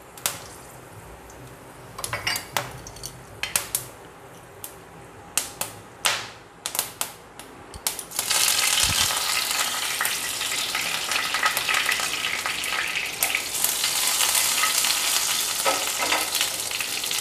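Scattered sharp pops of mustard seeds in hot oil, then, about eight seconds in, fresh curry leaves dropped into the oil set off a sudden loud sizzle and spluttering that carries on.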